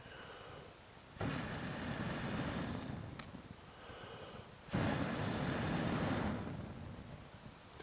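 A person breathing hard: two long, forceful exhales that start sharply and fade over about two seconds, with quieter in-breaths between.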